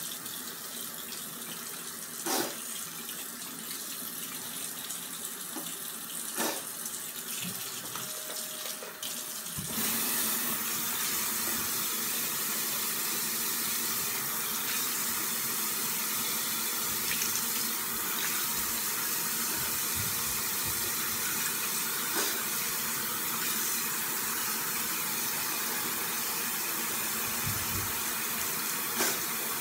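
Bathroom sink tap running steadily, growing louder about ten seconds in as the flow is turned up, with a few short clicks in the first few seconds.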